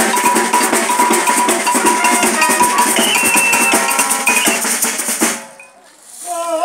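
Fast, dense folk percussion played for a dance, many quick sharp strokes with ringing metallic tones over them. It stops abruptly about five seconds in.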